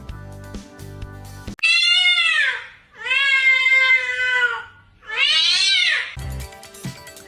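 A cat meowing three times in long, loud, drawn-out yowls. Each call rises and then falls in pitch, and the middle call is the longest. Background music plays before the calls and comes back near the end.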